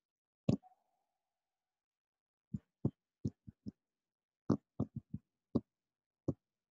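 About a dozen short, sharp clicks at irregular spacing, one about half a second in and the rest clustered from about two and a half seconds on, like keystrokes or mouse clicks at a computer.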